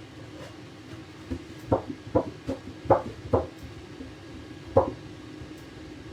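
A run of sharp kitchen knocks and clatters, about six in two seconds and one more a little later, over a steady appliance hum.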